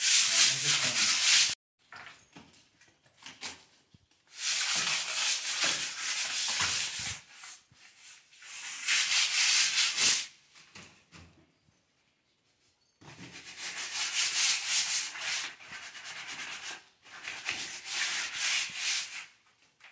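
A sheet of sandpaper rubbed by hand over a plastered wall, in several bouts of quick scratchy strokes, with short pauses about a second and a half in and again around the middle.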